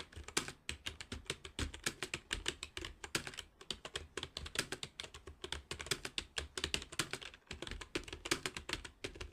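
Fast touch-typing on a computer keyboard: a quick, steady stream of key clicks, several strokes a second, with brief pauses now and then.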